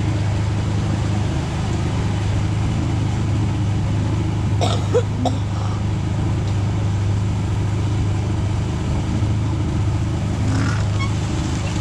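Boat outboard motor running steadily under way, a constant low engine hum.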